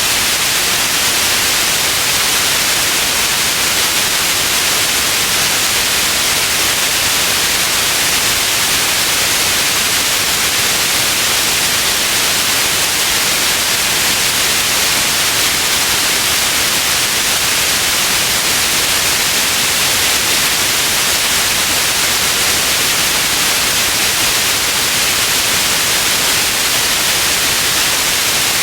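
Steady white noise: an even, unchanging hiss that is strongest in the highs.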